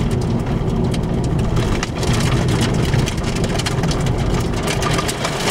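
Car tyres running over freshly laid loose fine stone chippings, with many small stones thrown up by the wheels ticking against the car's body over a steady rumble of road noise. The road has a new chip-seal surface whose binder has not yet set.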